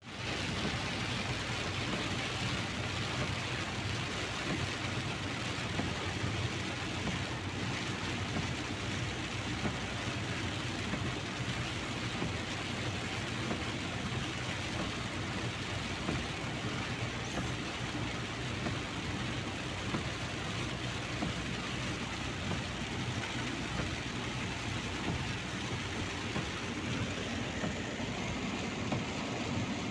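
Heavy rain falling on a car's roof and windshield, heard from inside the moving car, over a steady rumble of tyres and engine.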